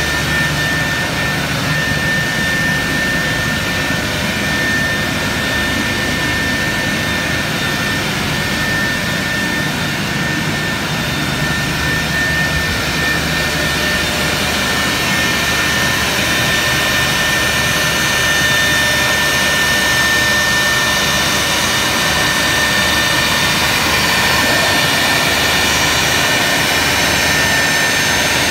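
Three-spindle CNC router running, its 4.5 kW, 18,000 rpm spindle routing grooves into a white panel, with a steady high whine over the cutting noise. It grows a little louder in the second half.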